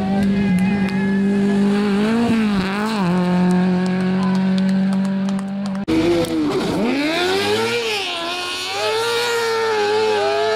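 A rally car engine running hard at a steady pitch, with two brief drops and recoveries in revs. After a sudden cut, a car-cross buggy's engine falls and rises in revs through the corners, with a hiss of tyres on the wet road.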